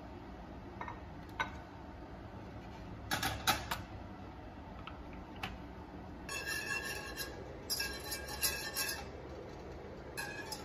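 A metal saucepan clunks down a few times onto an electric coil burner about three seconds in. Then come two spells of a wire whisk scraping and rattling in the saucepan, with a faint ring from the pan.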